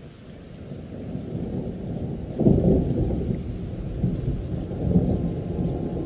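Thunder rumbling over rain. It swells to its loudest about two and a half seconds in, peaks again more softly near five seconds, and rolls on.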